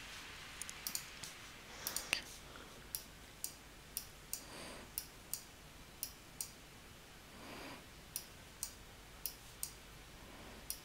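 Faint computer mouse clicking, about two clicks a second while a gradient is being edited in a drawing program, with two soft breaths in between.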